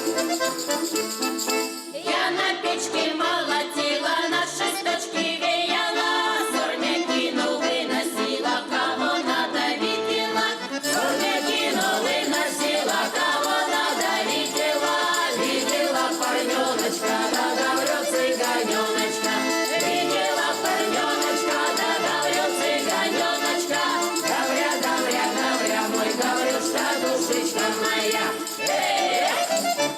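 A Russian folk song performed live by a folk ensemble: group singing over accordion, with a jingling rattle keeping time.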